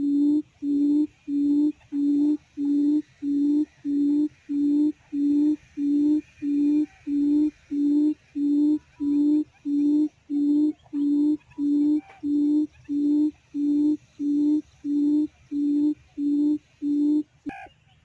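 Quail lure call: a low hoot repeated very evenly, about one and a half times a second, played to draw quail to the trap. It breaks off near the end with a short sharp sound.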